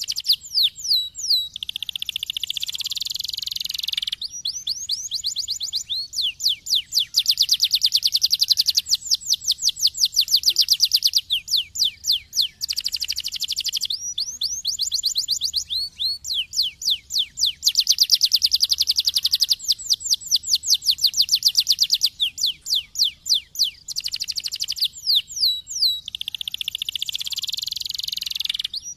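Domestic canary singing a long song of fast trills. Each trill is a quick run of one repeated note, and the song switches to a new trill every few seconds with short breaks between them.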